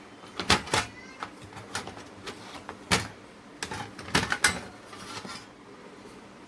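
A series of irregular sharp clicks and light knocks, about a dozen, the loudest about half a second, three seconds and four seconds in.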